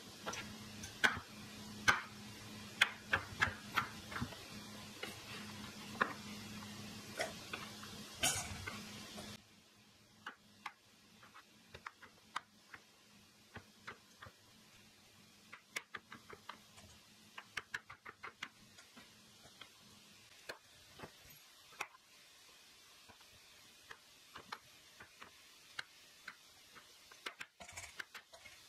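Chef's knife chopping potatoes on a wooden cutting board: irregular sharp taps of the blade striking the board, several a second at times. A low steady hum underneath stops abruptly about nine seconds in.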